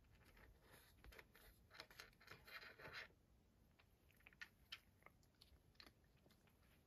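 A Siberian cat crunching dry treats, faint: a quick run of crunches in the first half, then scattered single crunches.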